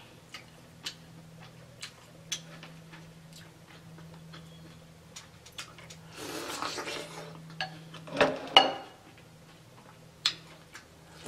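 Close-miked eating of corn on the cob dripping with seafood-boil sauce: wet mouth clicks and lip smacks scattered throughout, a longer slurping bite about six seconds in, and two loud smacks a little after eight seconds. A faint steady hum runs beneath.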